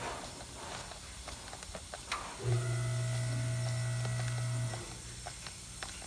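Compressed air hissing through a cylinder leakage tester into a cylinder held at top dead center, escaping past a leaking intake valve: a large leak. A couple of clicks near the start and about two seconds in, and a steady low hum for about two seconds in the middle.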